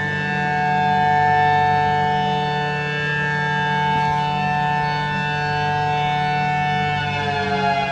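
Federal Signal Thunderbolt 1000AT siren sounding a steady dual-tone chord, its loudness swelling and fading gently as the rotating horn sweeps past. Near the end the pitch begins to fall as the alert winds down. The siren runs with its supercharging blower locked up.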